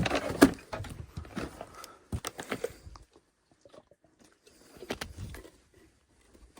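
Scattered knocks and clatter for about three seconds, then near quiet, with a few more knocks about five seconds in.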